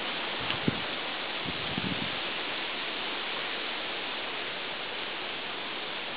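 A steady, even hiss, with a few soft low thumps about half a second in and again around two seconds in.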